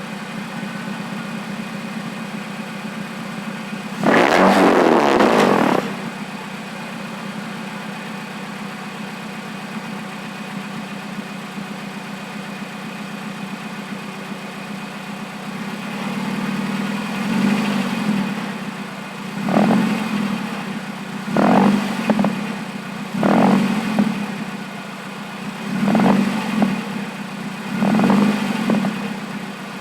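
Nissan Versa hatchback's four-cylinder engine running with no exhaust fitted: a steady idle, one loud rev lasting about two seconds about four seconds in, then a series of short throttle blips every couple of seconds through the second half.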